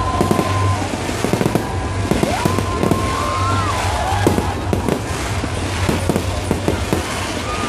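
A fireworks display going off in rapid succession: a dense, unbroken run of pops, bangs and crackles.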